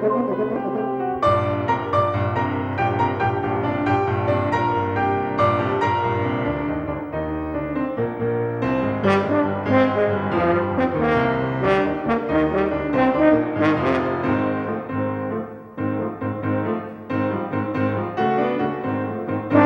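Music: brass instruments playing sustained and then busier phrases over piano.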